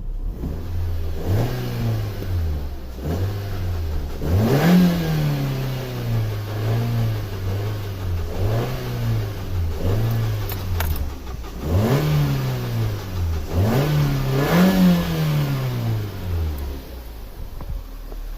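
Car engine revved in repeated blips during a jump start, about eight times, its pitch rising and falling back with each one. It drops to a lower, steadier run near the end.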